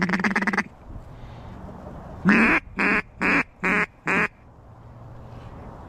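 Mallard duck call blown as a hen quack sequence: a quick rattling run of short notes at the start, then about two seconds in, five loud quacks, the first the longest and loudest.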